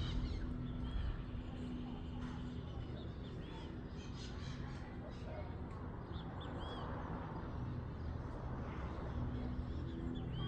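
Birds calling in short chirps that rise and fall, repeated every second or so, over a steady low hum.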